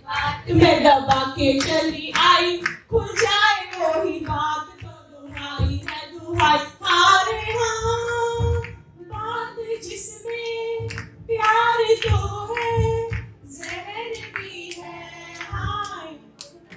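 A woman singing a song unaccompanied into a microphone over the hall's loudspeakers, with held notes and other women clapping along in time.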